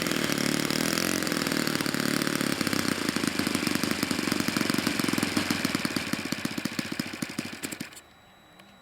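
Saito 62 four-stroke model-airplane engine dropping to a slow idle, its individual firing beats plainly heard, then cutting out suddenly near the end as it is shut down.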